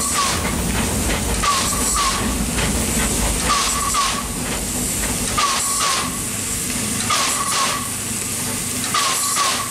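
Small metre-gauge steam locomotive running, heard from its front end: steady steam hiss with regular pairs of short puffs recurring about every one and a half to two seconds.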